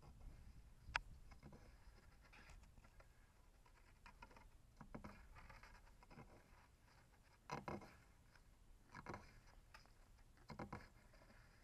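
Faint, scattered scratching and scraping of a tortoise's clawed feet and shell against a wooden board and bark mulch as it crawls, with a sharp click about a second in and several louder scrapes later on.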